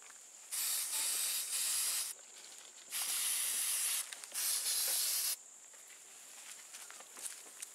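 Aerosol can of antibiotic spray hissing in four bursts of about a second each, sprayed onto an elephant's foot abscess.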